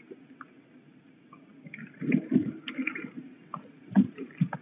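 Young peregrine falcons flapping and scrambling on a wet wooden nest ledge: irregular thumps and knocks, loudest around two seconds in and again about four seconds in, with rain dripping.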